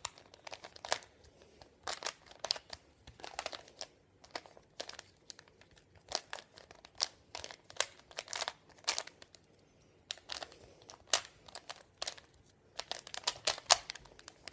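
Rubik's Cube being turned quickly by hand during a solve: rapid plastic clicks and clacks of the layers twisting, in uneven flurries with a short pause about nine to ten seconds in.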